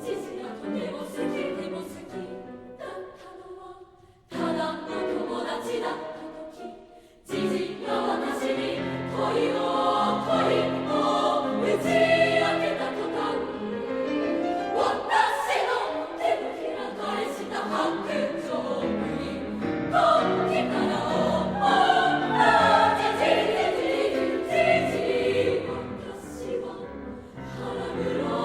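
Three-part girls' choir singing with piano accompaniment. The sound drops away briefly twice, about four and seven seconds in, and each time the voices come back in loudly.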